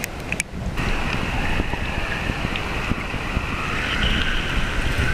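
River current heard through an action camera held at the waterline: a muffled low rumble with a few clicks at first, then about a second in a louder, brighter rush of flowing water.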